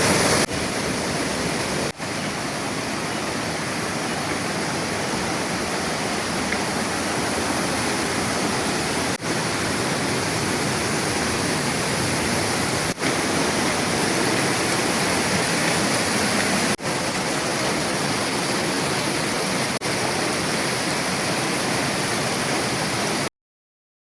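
Waterfall rushing: a steady, loud roar of falling water, with a few split-second dropouts, stopping abruptly near the end.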